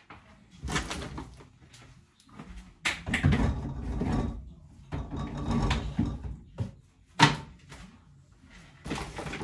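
Groceries being put away in a fridge: several bouts of rustling and items knocking against shelves, with a sharp clack about seven seconds in, then rustling of plastic packaging near the end.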